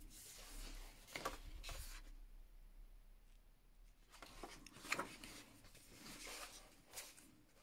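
Faint rustle and flick of large paper pages being turned in a softcover colouring book, in two bouts with a few sharper flicks of the sheets.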